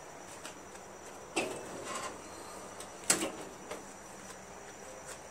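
A few brief knocks and clunks over a faint steady hum, the loudest about three seconds in.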